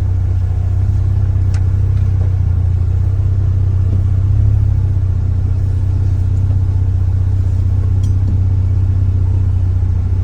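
2024 Polaris Ranger XD1500's three-cylinder engine running steadily at low speed as the side-by-side creeps forward to line up with a plow, with a brief swell in engine sound about four and a half seconds in.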